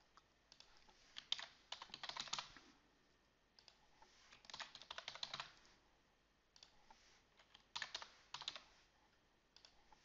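Faint computer keyboard typing in short bursts of keystrokes, a word at a time, with pauses between the bursts.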